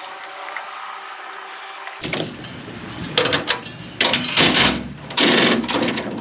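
A bow-mounted electric trolling motor whines steadily. About two seconds in, an anchor goes over the bow and its chain and line rattle out in irregular bursts, with a boat engine running low underneath.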